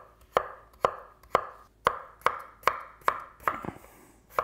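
Chef's knife dicing a raw peeled potato on a wooden cutting board: steady, even knife strikes about two a second, with a brief pause near the end.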